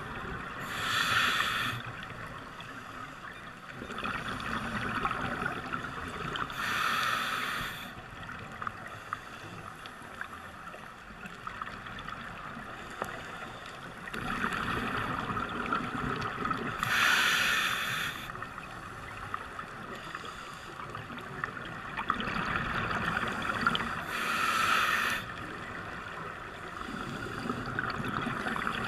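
Scuba regulator exhalations heard underwater: a bubbling rush of about a second, four times, over a steady underwater hiss and crackle.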